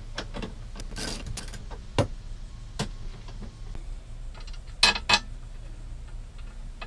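Irregular clicks and light knocks of metal and plastic parts being handled at a swivel seat's base: a socket wrench on the mounting bolts, then fingers working a part into line. Two sharp clicks come close together about five seconds in.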